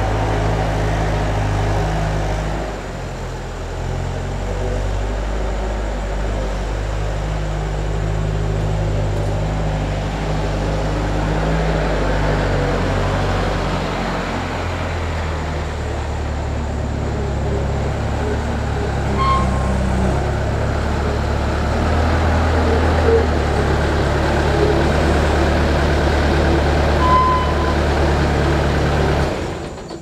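A motor vehicle engine running steadily, its speed shifting a couple of times, then shut off near the end.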